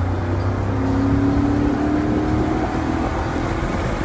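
A 1991 Mercedes-Benz R129 SL heard from inside the cabin with the top up: the engine runs under load, its note climbing in pitch as the car accelerates, over a steady low road drone.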